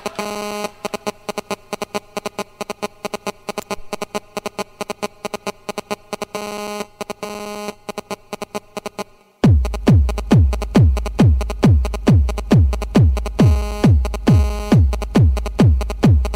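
Electronic dance music: a run of fast, sharp percussive hits and synth chords, then, after a brief drop about nine seconds in, a heavy kick drum comes in on every beat at about two a second, each kick a low thud falling in pitch.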